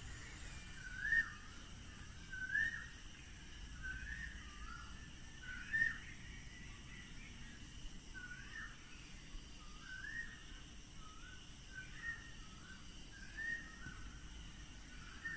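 A bird calling over and over: a short whistled note that rises and falls, repeated about every second and a half, over a faint steady background hiss.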